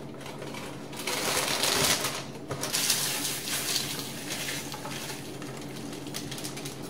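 Honey Bunches of Oats cereal poured from its box into a bowl: dry flakes and clusters rattling and rustling, starting about a second in and loudest for the next two to three seconds before tapering off, over a steady low hum.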